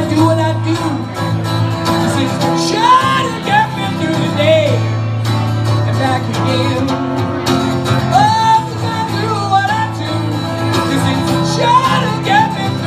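A man singing a song to his own acoustic guitar accompaniment, the guitar sounding steady low chords under a sung melody that slides between notes.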